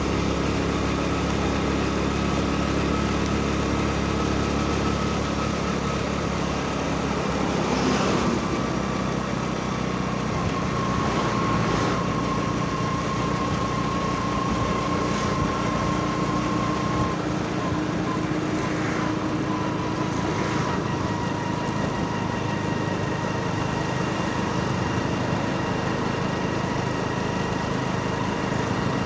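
A road vehicle's engine and road noise, heard from inside while it drives steadily, with a faint steady whine. A few brief whooshes of passing traffic come and go.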